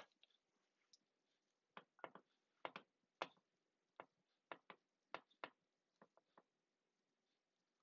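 Quiet, irregular clicks and taps as a hand arranges pepper rings and chicken pieces in a glass baking dish, about fifteen of them, bunched between about two and six and a half seconds in.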